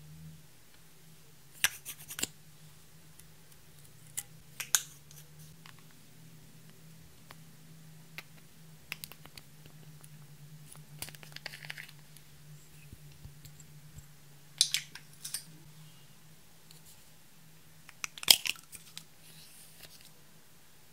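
Sharp clicks and taps of lipstick tubes, caps and a cherry-shaped lip balm case being opened and handled over a glass dish, a few at a time, with a brief scraping of makeup smeared on the glass about eleven seconds in. A faint steady low hum sits underneath.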